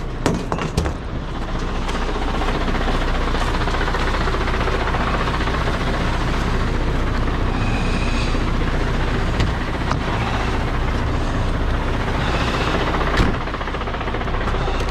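Mobile crane truck's diesel engine running steadily with a constant low rumble, with a single sharp knock about 13 seconds in.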